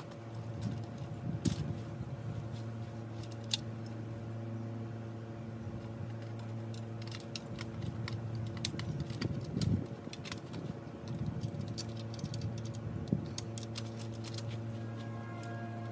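Scattered light metallic clicks and clinks, as of blind frame tubes and fittings being handled and fitted together, over a steady low hum.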